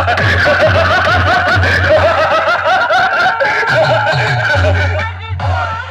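DJ dialogue track: a chopped laughing-voice sample repeated over and over on top of heavy, pounding bass beats.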